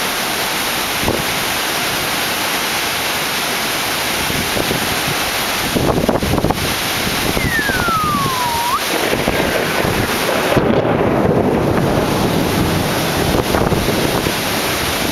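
Heavy rain and gusting wind in a summer storm, with wind buffeting the microphone more strongly from about six seconds in. About halfway through, a single whistle-like tone falls in pitch over about a second and a half.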